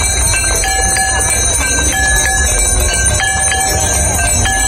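Temple bells rung over and over during a Hindu aarti, repeated clanging strokes with ringing tones, over a steady low background rumble.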